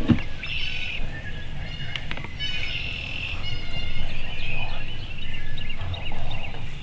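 Wild turkeys calling: repeated bursts of high, chattering calls, strongest about half a second in and again from about two and a half seconds in, over a steady low rumble.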